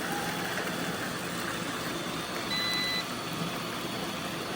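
Several robot vacuum cleaners running together, a steady whirring of motors and brushes, with a short electronic beep about two and a half seconds in.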